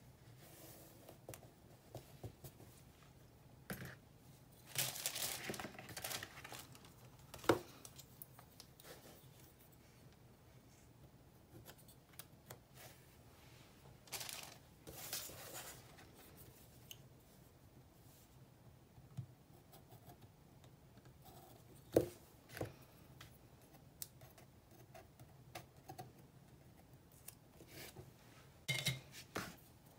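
Quiet, intermittent handling of paper and glitter washi tape on a planner page: rustles and scrapes of tape being smoothed, with a few sharp clicks and taps, the loudest a little past a third of the way in.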